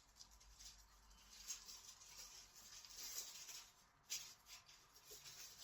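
Faint rustling and sliding of packaging and paper as box contents are handled, with a light tap about four seconds in.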